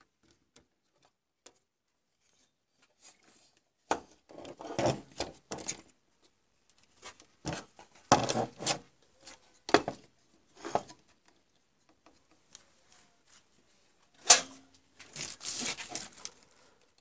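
A large printed circuit board being handled and turned over, knocking and rubbing against the work surface in irregular clatters and scrapes.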